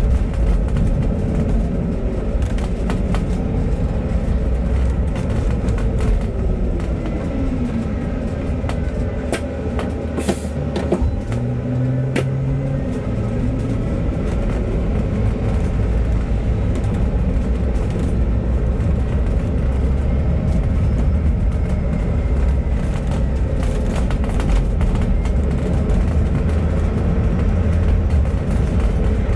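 Bus diesel engine and road noise, running steadily. The engine note falls as the bus slows about a third of the way in, then rises again as it pulls away.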